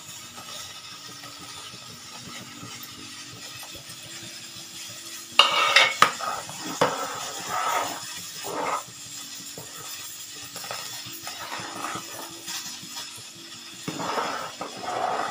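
Metal spoon and steel bowl clinking and scraping against a metal cooking pot as boondi is added to boiling kadhi and stirred in. A loud clatter about five seconds in is followed by several more scrapes, and there are more strokes near the end.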